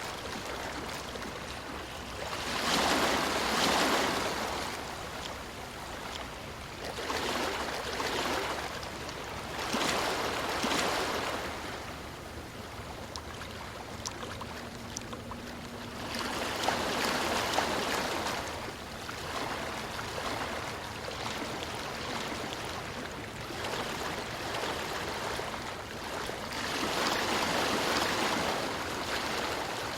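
Ocean waves washing onto a beach: swells of surf that build and fade every few seconds over a steady background wash.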